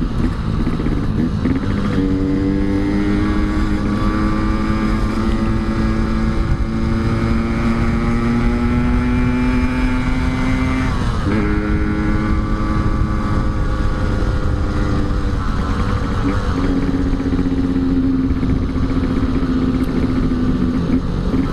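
Yamaha RX-King's two-stroke single-cylinder engine running under way. Its pitch climbs slowly for several seconds, drops sharply at a gear change about halfway through, then holds fairly steady. Low wind rumble runs underneath.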